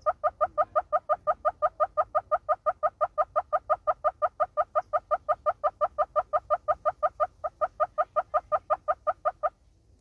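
Southern red-billed hornbill calling: a long, fast, even series of clucks, about five a second, that stops abruptly near the end.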